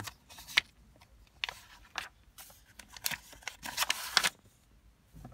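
Pages of an old paper desk diary being turned by hand: a string of short, dry rustles and flicks, the loudest about four seconds in.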